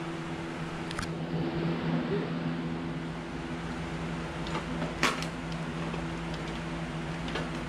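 A steady mechanical hum, with a few light clicks and taps as hands work a carbon fibre tank infill free of its plastic clips on a motorcycle fuel tank. The sharpest click comes about five seconds in.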